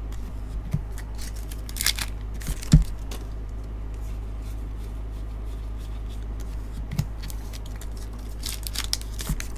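Trading cards being shuffled and handled, giving short rustles and clicks with a sharper knock about three seconds in and more rustling near the end, over a steady low hum.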